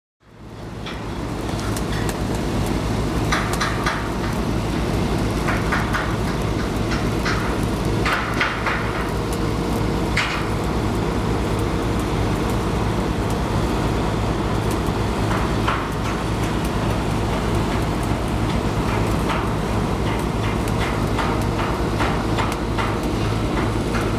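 A steady low engine hum with short bursts of crackling over it, fading in at the start.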